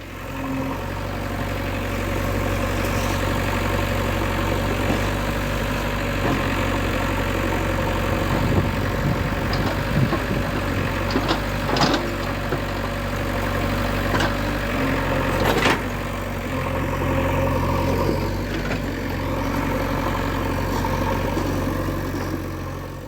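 Tractor engine running steadily at a low idle-like hum, with a few sharp clicks about midway.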